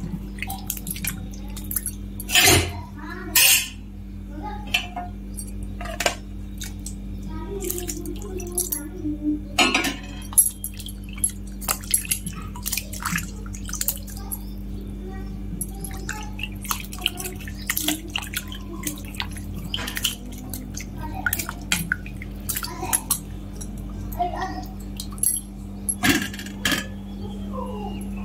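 Bitter gourds being washed by hand in water in a steel bowl: irregular splashing and dripping, with the gourds now and then knocking against the metal. A steady low hum runs underneath.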